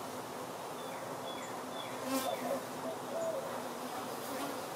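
Honeybees buzzing as they fly around a wooden hive's entrance, a steady hum that is briefly louder about two seconds in.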